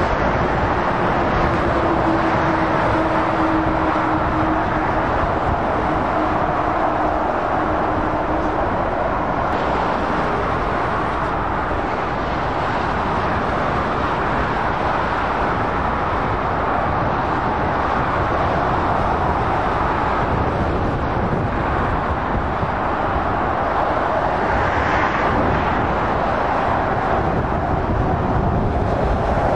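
Steady motorway traffic: lorries and cars passing at speed, a continuous mix of tyre noise and engines. A faint steady hum sits under it for roughly the first third.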